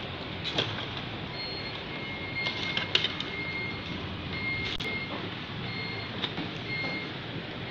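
A cable being handled and plugged into the back of an HP ScanJet Pro 2500 f1 flatbed scanner: a few light plastic clicks and knocks, the sharpest about half a second and three seconds in. Behind them is a steady noisy background with short high beeps recurring irregularly.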